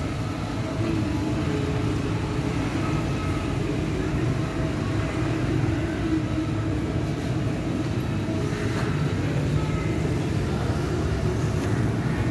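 Corded electric hair clippers buzzing steadily as they cut a child's hair.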